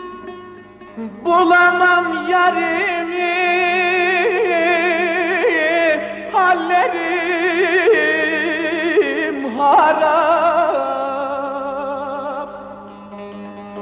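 Music from a Turkish folk song between its sung verses: a long melodic line of held notes with wide vibrato over a steady low drone. It comes in about a second in and drops away near the end.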